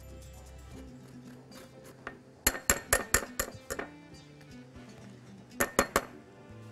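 A flat metal hand grater clinking against a small glass bowl, most likely knocked against the rim to shake off lemon zest. There is a quick run of about six sharp clinks, then three more about two seconds later, over background music.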